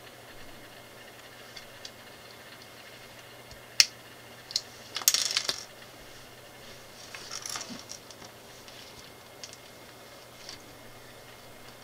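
Small plastic LEGO pieces clicking and rattling as they are handled, picked from a loose pile on a wooden table and fitted together: one sharp click about four seconds in, a short clatter just after five seconds, and softer rummaging around seven to eight seconds.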